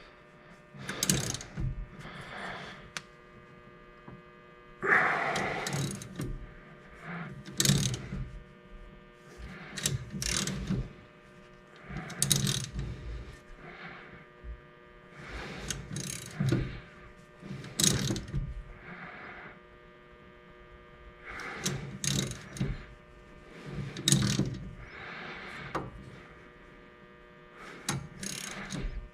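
Socket ratchet clicking in short bursts about every two seconds, the handle worked back and forth to free a stuck brake fitting that is just starting to move, with a faint steady hum beneath.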